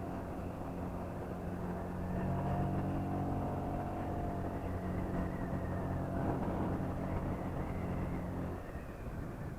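Honda PCX scooter's single-cylinder engine running under throttle on its stock exhaust. It grows louder about two seconds in and eases off near the end.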